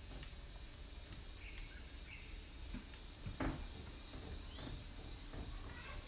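Forest insects keep up a steady high drone with an even, fast pulsing, and a few short bird chirps come through. There is a single soft knock a little past the middle.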